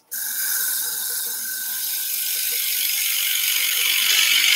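Bowl gouge cutting across the face of a sycamore plate spinning on a wood lathe: a steady hiss of shavings coming off, starting abruptly and growing a little louder as the cut goes on.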